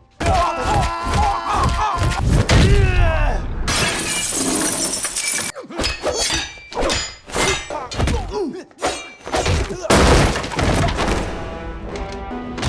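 Action-movie fight soundtrack. Voices shout at first, then glass shatters about four seconds in, followed by a rapid run of sharp blows and thuds over music.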